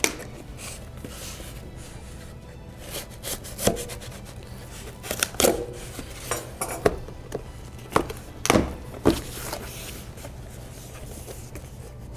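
A cardboard box being handled on a wooden workbench: scissors slitting its tape and then set down, and the box lifted and turned. This gives a scattering of sharp knocks and cardboard scrapes, most of them in the middle of the stretch.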